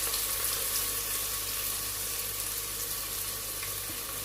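Onion sizzling in hot groundnut oil in a pot: a steady frying hiss that slowly gets quieter.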